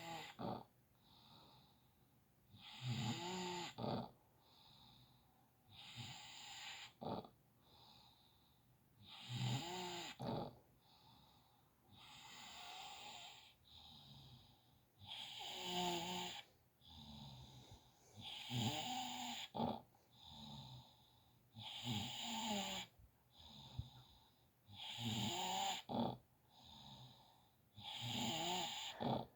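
Steady rhythmic snoring, one loud snore about every three seconds with quieter breaths in between.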